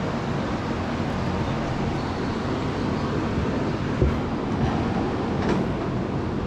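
Steady rumbling noise with a sharp knock about four seconds in and a couple of lighter knocks after it.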